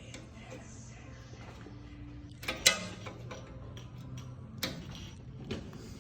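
Sharp clinks and knocks of hand tools and suspension parts being handled: a quick pair about two and a half seconds in, then single knocks near the end, with lighter ticks between.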